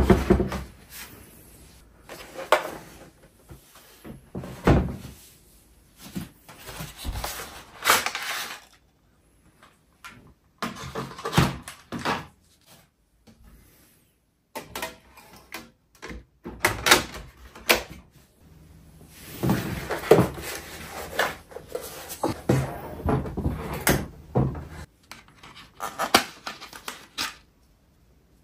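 Bumps, knocks and scrapes as the plastic and metal parts of a Bambu Lab A1 3D printer are handled: the flexible build plate is pulled off the heatbed and the plastic base is turned over and set down on a wooden table. The knocks come in irregular clusters with short pauses between them.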